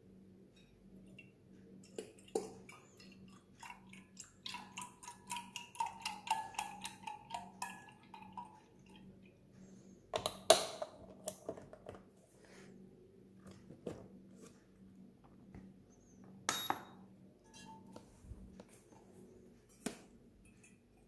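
Milk glugging out of a carton into a metal milk pitcher for about four seconds, with a tone that rises as the pitcher fills. Then a few sharp metallic clinks and knocks as the pitcher and carton are handled and set down, the loudest about ten seconds in and another a few seconds later.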